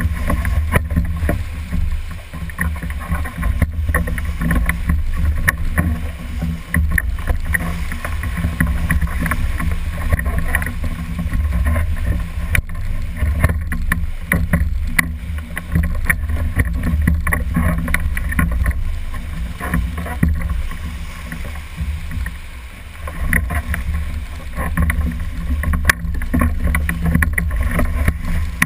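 Whitewater rapid rushing around a rowed raft, with a heavy low rumble on the microphone and frequent sharp clicks and splashes throughout.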